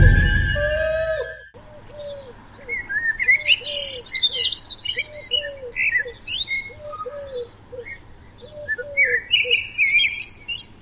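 Birdsong ambience: high chirps and twitters over a low two-note call that repeats again and again. Before it comes a loud low swoosh that cuts off about a second and a half in.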